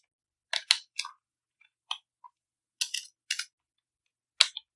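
Typing on a computer keyboard: about eight sharp key clicks at uneven intervals, with silence between them.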